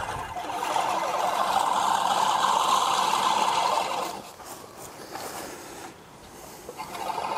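Remington 18-inch manual reel mower being pushed through grass, its spinning reel blades whirring and clattering against the bed knife as they cut. It dies down about four seconds in and picks up again near the end.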